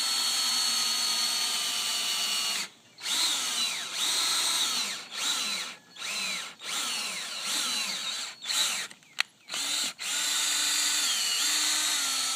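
Cordless drill boring a hole through the edge of a thick bound book, run in repeated bursts with short stops between them. The motor whine drops in pitch on many of the runs.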